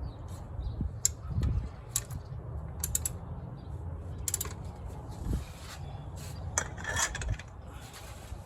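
Scattered metallic clicks and clanks from hand tools and the drive belt on the engine's pulleys as the belt is worked into place, with a cluster of clicks about seven seconds in.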